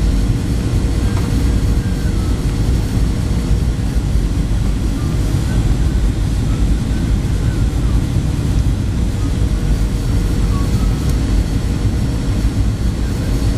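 Steady cabin noise of a Boeing 737-700 on final approach, heard from a window seat beside the wing: a deep rumble of the CFM56-7B engines and airflow, with a faint steady hum tone above it.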